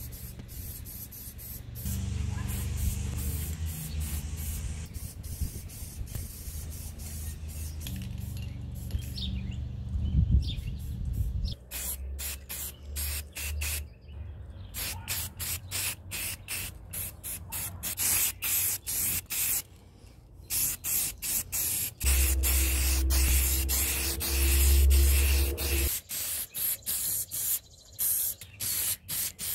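Aerosol spray paint can hissing as paint is sprayed onto metal pedal-tractor parts. It sprays more steadily at first, then in many quick short bursts, several a second, with a low rumble under it at times.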